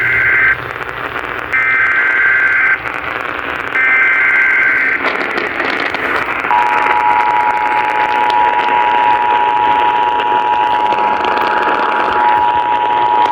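Emergency Alert System tones received over the radio, with hiss underneath. Three short warbling SAME header data bursts are followed by the steady two-tone EAS attention signal, which starts about halfway through. Together they announce a new severe thunderstorm warning.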